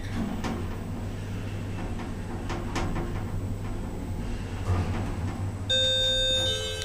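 A lift running with a steady low hum, with a few clicks and knocks. Near the end, clear electronic musical tones begin.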